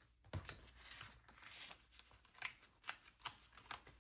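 Faint handling of a paper planner and its pages: a series of light clicks and taps with a soft rustle of paper.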